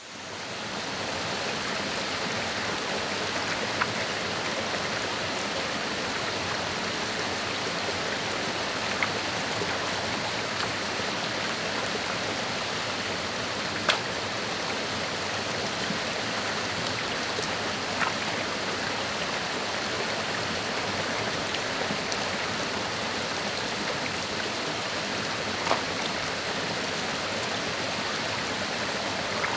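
Steady rush of a shallow, rocky forest stream, fading in over the first second, with a few short sharp clicks scattered through.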